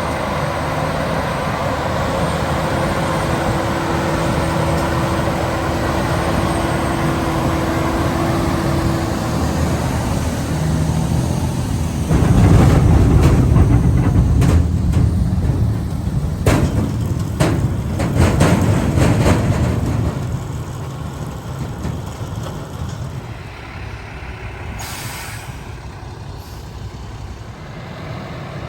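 Heavy diesel harvest machinery and trucks running steadily. About twelve seconds in a much louder rumble sets in with a run of sharp clattering knocks, which fades after about eight seconds to a quieter engine sound.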